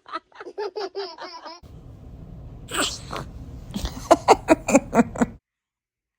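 Rhythmic bursts of laughter, then a baby's sneeze about halfway through, followed by another run of laughter. The sound cuts off suddenly near the end.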